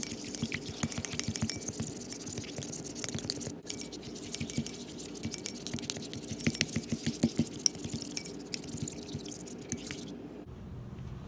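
Plastic tint brush stirring hair bleach in a ceramic bowl: a rapid, uneven run of scrapes and clicks as the brush knocks and drags against the bowl, stopping shortly before the end.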